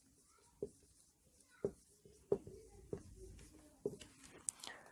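Marker pen writing on a whiteboard: faint, short separate strokes of the tip as letters are drawn, with a couple of higher squeaks near the end.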